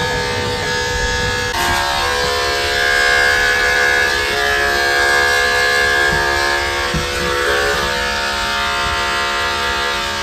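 Corded electric dog clippers running with a steady, whining buzz as they shear a poodle's curly coat; the pitch of the hum shifts about a second and a half in.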